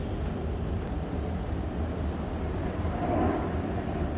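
Steady low rumbling background noise, swelling slightly about three seconds in.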